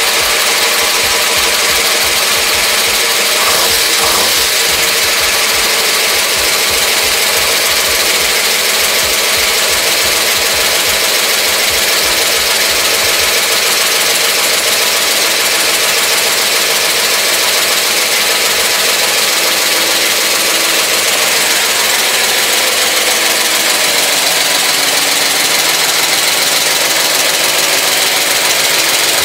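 Newly rebuilt Mopar 383 big-block V8 running steadily on an engine stand, its exhaust going through headers into 40 series Flowmaster mufflers. Loud, even engine and exhaust noise.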